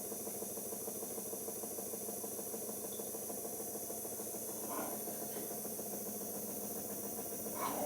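Siemens iQ front-loading washing machine running a steady motor-driven drum cycle in its final spin stage, with the no spin option selected. The hum is even with a light rattle.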